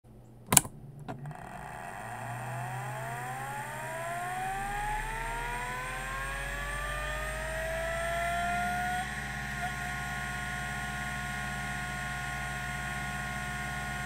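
TEAC SD-510 10 MB 5.25-inch hard drive powering up: a sharp click about half a second in, then the spindle motor spins up with a whine rising in pitch for about seven seconds. It levels off and runs steady at full speed, with a faint tick shortly after.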